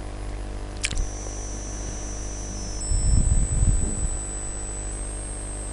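Steady electrical mains hum and background hiss in the recording. A single click comes about a second in, and soft low rumbles come around three to four seconds in.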